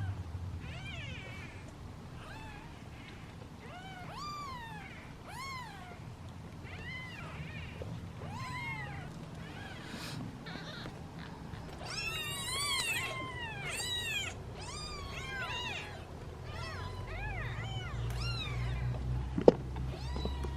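Tiny British Shorthair kittens meowing over and over in high calls that rise and fall, several at once about halfway through, hungry kittens calling while they wait to be fed. A single sharp click near the end.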